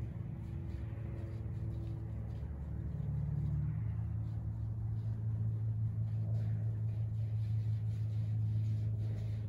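Steady low hum of a running engine, with a slight shift in pitch about four seconds in.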